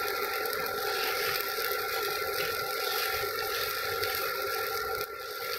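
Chilla batter sizzling in oil on a hot iron tawa while a steel ladle spreads it round in circles, scraping lightly on the pan. A steady high whine runs underneath.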